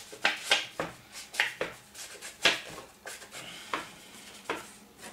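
Paper edges being swiped against a Distress ink pad to ink them: a run of short brushing strokes, quick and close together at first, then slower and more spaced out toward the end.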